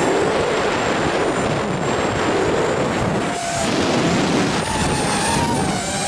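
Heavy wind rush on the microphone of a ZMR250 racing quadcopter's onboard camera, with the whine of its electric motors and propellers faintly rising and falling in pitch as the throttle changes.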